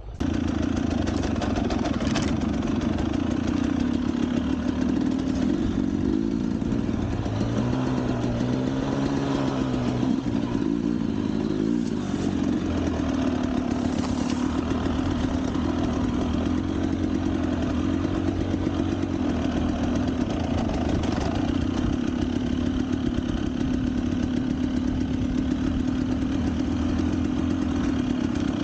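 Motorcycle engine running steadily at idle, coming in suddenly at the start, with a brief rise and fall in engine speed about eight to ten seconds in.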